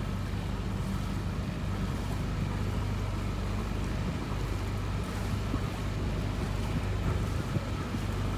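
A small sailboat's auxiliary engine running steadily under way as a constant low hum, with wind noise on the microphone.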